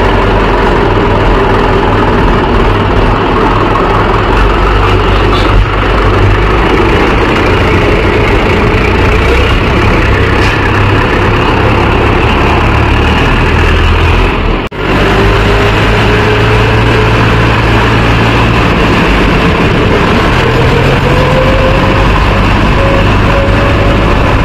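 Mahindra diesel tractor engines running steadily at low revs, cut off briefly by a short dropout past the middle. After that the engine note climbs slowly as the tractor picks up speed.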